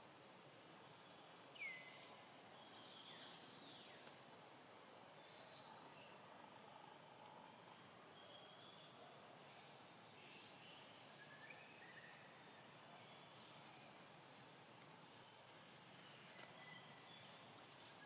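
Faint natural ambience: scattered short bird calls that slide downward in pitch, one standing out about a second and a half in, over a steady high insect hiss.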